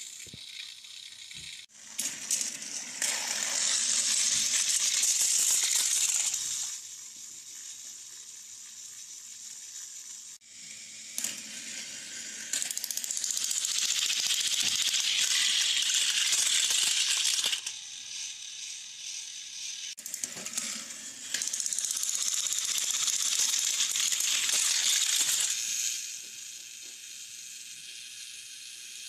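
Battery-powered toy trains running on plastic track: a high rattling clatter of small motor gears and plastic wheels. The clatter swells loud three times, each swell lasting about four to five seconds as a train passes close by, with quieter running between.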